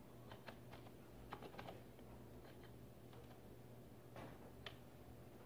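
Computer keyboard being typed on: faint, irregularly spaced keystrokes as an IP address is keyed into a web browser.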